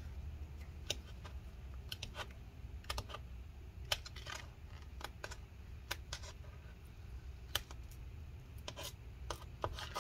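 Scattered light clicks and taps, about a dozen at irregular intervals, from handling the opened MacBook Pro's parts by hand and with tools, over a steady low hum.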